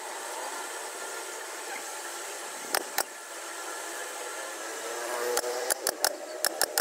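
Pneumatic staple gun shooting staples through cloth into a plywood sofa frame: two sharp shots about halfway through, then a quick run of about seven near the end, over a steady mechanical hum.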